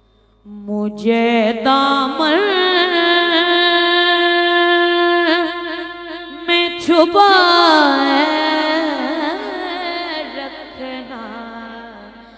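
A naat sung solo by a high, young male voice in long, held, ornamented lines. The singing starts about a second in, a new phrase begins about seven seconds in, and the voice fades toward the end.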